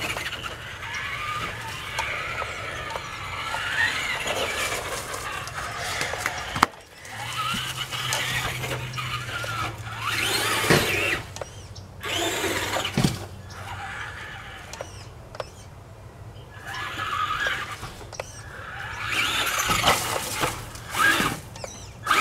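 Traxxas Rustler XL-5 RC truck's electric motor whining up and down in repeated bursts as the throttle is worked, with its tyres running over dirt and dry leaves.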